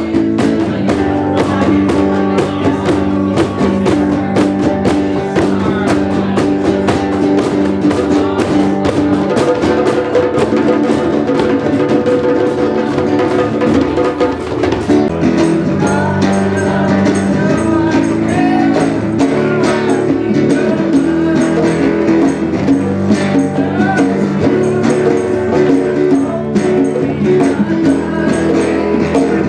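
Live drum-circle music: congas and djembes played by hand with dense, steady strokes, over an acoustic guitar and other instruments holding pitched notes.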